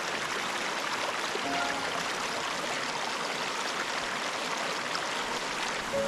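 Creek water rushing over rocks, a steady even hiss.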